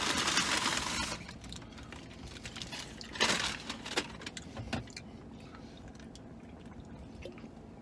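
Burger wrapper paper crinkling and rustling as it is handled, loudest in the first second and then fading. It is followed by a brief rustle about three seconds in and a few faint clicks.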